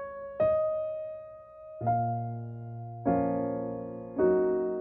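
Background piano music: slow single notes and then fuller chords, a new one struck about every second and a quarter and left to ring and fade.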